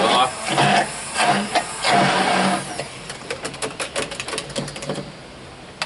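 Handheld stick blender puréeing avocado-garlic pesto in a tall glass. Its motor hums in short spurts that start and stop several times for the first two to three seconds, followed by a quick run of light clicks.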